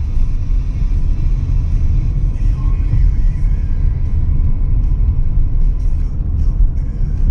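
Low, steady road rumble inside a moving car's cabin, with background music playing over it.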